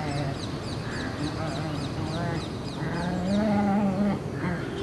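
Small dogs, a pug among them, making low, wavering playful growls and grumbles while tugging at a towel.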